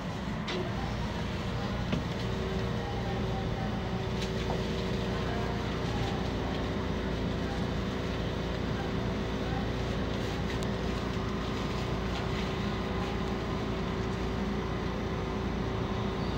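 Steady hum of a suspended monorail car standing at a station platform, its onboard equipment running; a steady tone comes in about two and a half seconds in, with a few faint clicks.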